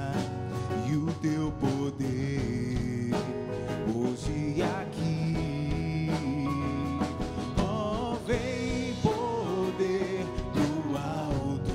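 A male singer performing a Catholic worship song with band accompaniment of guitar and drums, the voice gliding and wavering in long held phrases.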